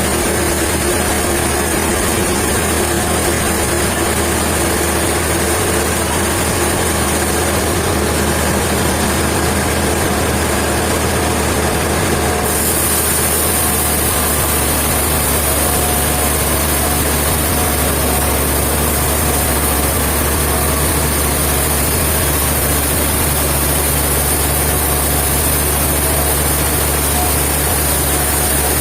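A heavy engine running steadily at idle, a constant low hum with hiss above it. The high hiss grows brighter about twelve seconds in.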